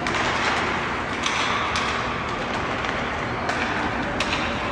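Youth ice hockey game play in an arena: a steady hiss of skates on the ice and rink noise, broken by several sharp clacks of sticks and puck.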